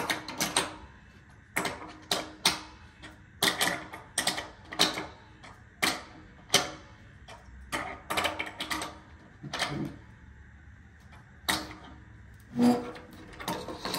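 Irregular metal clicks and clanks, some in quick clusters and a few ringing briefly, from hand tools working a bolt on the leg bracket of a metal pipe grind rail while it is being tightened.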